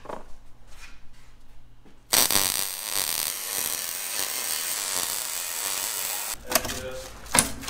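Wire-feed welder's arc burning steadily for about four seconds while laying a weld bead on a steel brake pedal; it starts about two seconds in and stops suddenly. A couple of sharp clicks follow near the end.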